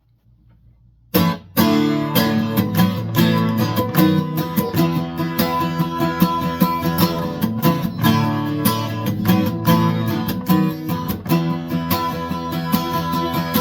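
Instrumental intro of a worship song: music led by a strummed acoustic guitar, starting suddenly about a second in.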